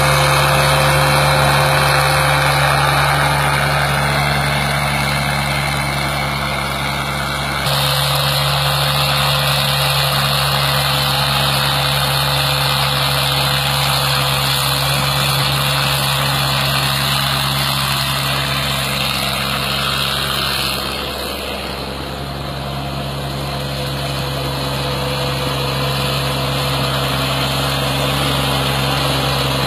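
Sonalika mini tractor's small diesel engine running steadily under load as it drags a tillage implement weighted with riders through the soil. The engine note changes abruptly twice, about eight seconds in and again about twenty-one seconds in.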